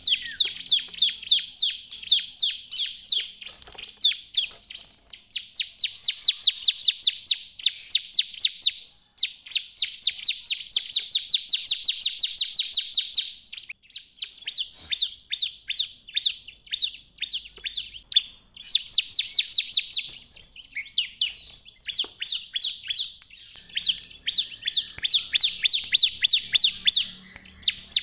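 Bar-winged prinia (ciblek) singing: long rapid runs of sharp, high chipping notes, about five or six a second, each run lasting a few seconds with short breaks between.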